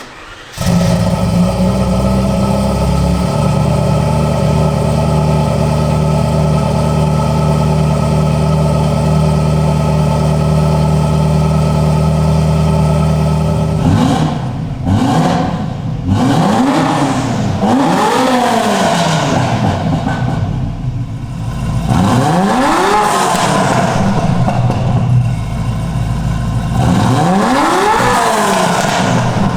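Car engine starting up cold. It catches about half a second in and settles into a steady high idle. From about halfway through it is revved in a series of sharp throttle blips, rising and falling in pitch, each dropping back to idle.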